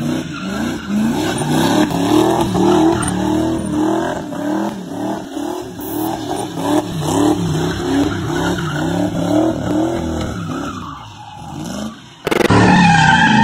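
Small pickup truck doing donuts: its engine note rises and falls in quick, regular waves under the throttle while the rear tyres squeal and skid. The revs die away near the end, then it cuts abruptly to a louder, different engine sound.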